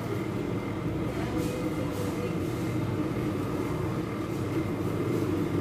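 Halogen convection oven running while roasting, its fan giving a steady hum with a faint constant high whine.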